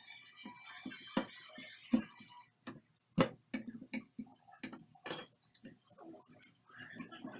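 Irregular light taps and knocks from hand-tool work at the base of a wooden cabinet, a dozen or so sharp strikes unevenly spaced.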